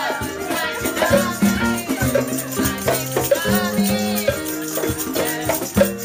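Music with a steady shaker rhythm over a moving bass line and a melody.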